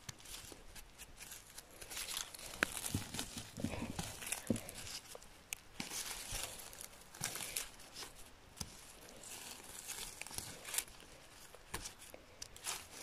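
Irregular rustling and crackling with short sharp snaps: gloved hands picking chanterelles out of dry moss and pine needles and trimming the stem bases with a knife.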